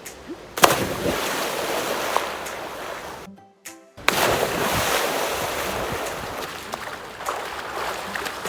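A loud splash about half a second in as a person plunges into deep water, followed by churning water; after a brief gap, another rush of splashing water that slowly dies down, with music underneath.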